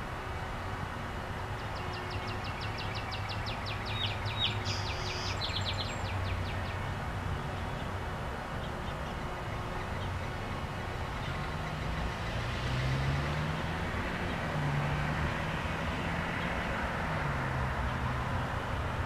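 Steady outdoor traffic noise with a low engine hum. In the second half a passing vehicle's engine rises and falls in pitch. Early on, a short run of rapid high ticking is heard.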